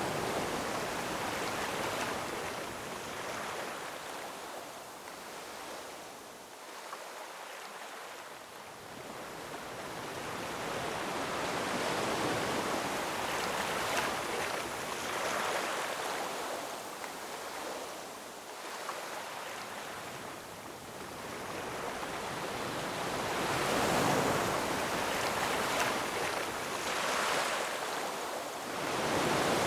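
Ocean surf washing in over rocks: a steady rushing hiss that swells and falls back in slow surges, every ten seconds or so.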